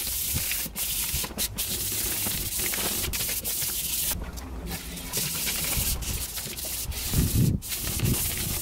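Hand wet sanding of an aluminum bus bumper with 1000-grit sandpaper: a steady hiss of wet paper rubbing on the metal, broken by several brief pauses between strokes.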